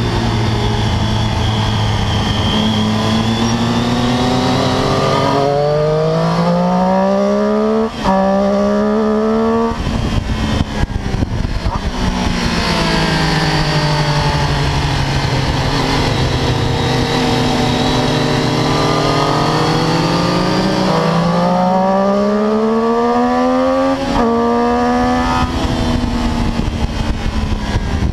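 Triumph Daytona 675 inline-three engine at racing revs, heard from on the bike with wind noise. The revs climb and break at a quick upshift about 8 seconds in, fall away for a long stretch as the bike slows, then climb again with further upshifts near the end.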